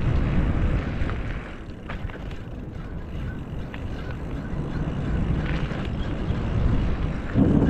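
Wind buffeting the microphone and tyre rumble from a bicycle freewheeling fast down a tarmac lane, with a short sharp knock about two seconds in as it rolls over a strip across the road, and louder buffeting near the end.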